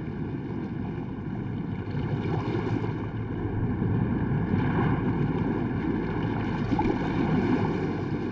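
Sea waves surging and breaking against a rocky shore: a steady low rush that swells a little in the middle.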